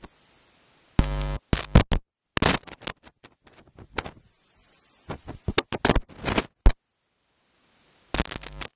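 Irregular crackles and pops, with a short buzz about a second in, broken by stretches of dead silence: a lectern microphone or sound-system signal crackling and cutting in and out.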